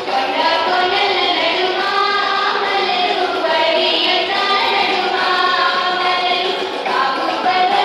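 A Telugu folk song: voices singing a melody over music, running steadily.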